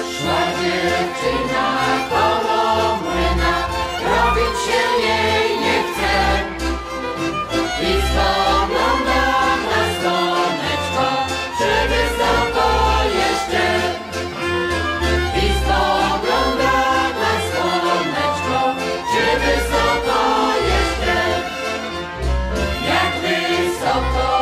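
Folk song played by a band with a fiddle, and a group of voices singing over a pulsing bass.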